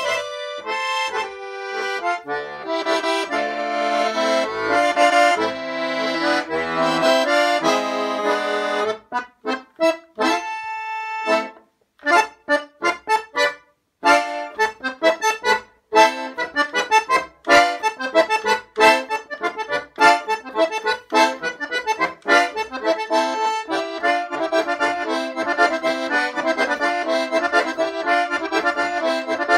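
Russian garmon (button accordion) playing a solo folk tune. Held chords give way about nine seconds in to short detached notes with pauses between them, which build into fast, dense runs of notes.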